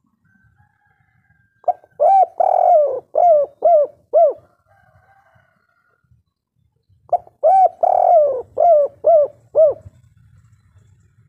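Spotted dove cooing: two phrases about five seconds apart, each a short opening note, a longer drawn-out coo, then a quick run of three shorter coos, the 'kuk 3' ending.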